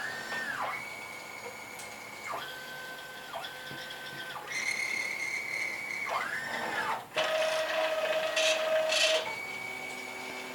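CNC router's axis drive motors whining as the gantry moves, the pitch gliding up and down as the axes speed up and slow down, holding steady tones between moves that start and stop. About seven seconds in, a louder, rougher stretch with a lower tone lasts about two seconds.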